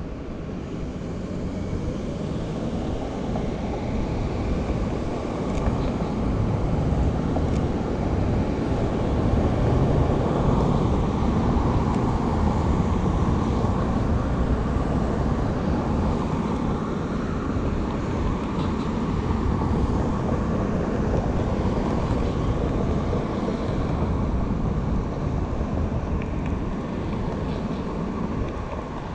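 Steady low rumble of city background noise with no clear single event, growing louder over the first few seconds and then holding.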